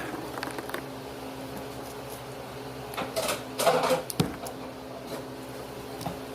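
Takis rolled tortilla chips crunching and crackling in short bursts, loudest in a cluster near the middle, over a steady low hum.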